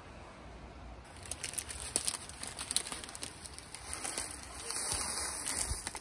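Plastic packet of dried nurungji (scorched rice) crinkling as it is handled and poured into a small camping pot, starting about a second in with many small crackles.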